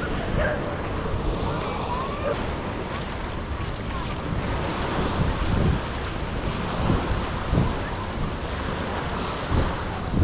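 Small surf washing onto the beach, with wind buffeting the microphone in low, irregular gusts.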